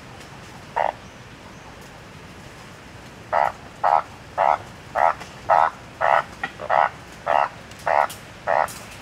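Banded bullfrog croaking: one short call about a second in, then from about three seconds a steady run of about ten short croaks, nearly two a second.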